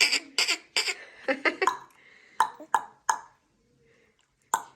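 Short non-word vocal sounds: a quick run of clipped, breathy syllables, then a few brief voiced sounds, then a quiet stretch about three and a half seconds in.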